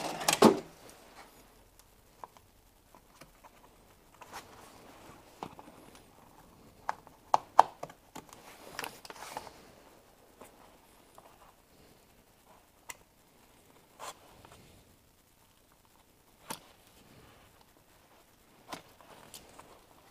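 Scattered light clicks, taps and rustles of a plastic motorcycle trim piece being handled and worked apart by hand, its screws and clips being felt for and undone. The clicks are short and irregular, a dozen or so, with faint handling noise between them.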